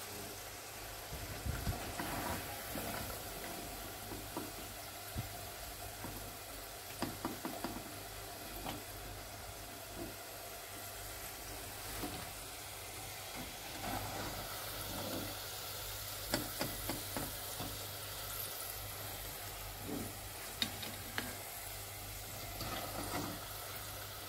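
Saucepan of oil sizzling steadily as french fries deep-fry, with scattered clicks and taps of a slotted spoon against the pan and plate as fries are lifted out of the oil.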